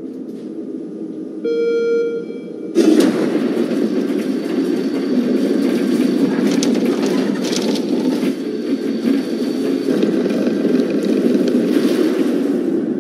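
A short beep, then about three seconds in a loud, dense mechanical noise starts abruptly and keeps going. It comes from the Mars Pathfinder lander being run on a vibration test rig during environmental testing.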